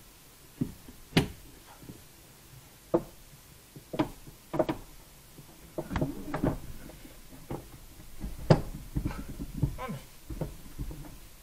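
Irregular knocks, clunks and clicks of hand work at a car's tailgate opening while a tailgate lift motor is being fitted into place, with the loudest knocks about a second in and again past the middle.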